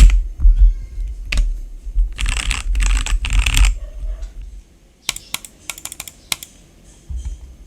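Keys of an RKG68 mechanical keyboard with lubed RK red linear switches: a few separate keystrokes, a dense run of rapid clattering about two seconds in, then lighter scattered clicks in the second half.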